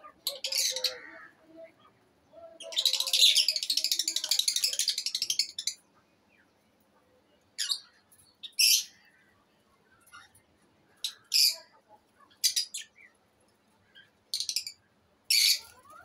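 Lovebirds giving shrill squawks and chirps: a burst of rapid chattering from about three to five and a half seconds in, then single short, sharp calls every second or two.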